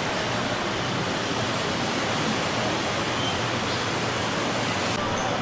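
Steady, even rushing background noise with no distinct events: indoor room ambience.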